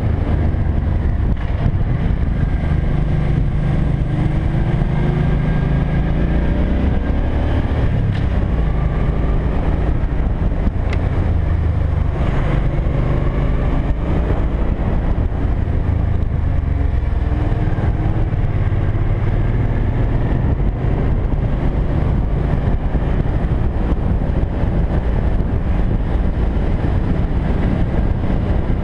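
Cruiser motorcycle engine running under way, its pitch rising and falling several times as the throttle opens and closes.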